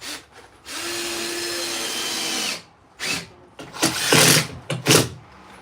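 A power tool runs steadily for about two seconds with a steady whine, then winds down. Several loud knocks and scrapes follow.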